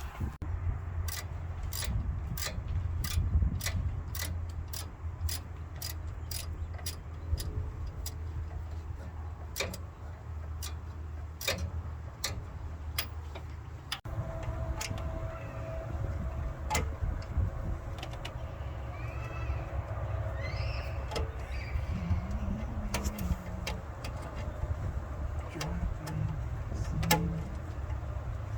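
Ratchet wrench clicking at a steady pace, about two clicks a second, then only now and then from about halfway, over a low rumble.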